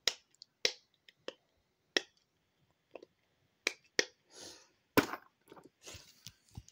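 Silicone bubbles of a simple dimple fidget toy being pushed, giving several sharp pops at irregular intervals, with some handling rustle in the second half.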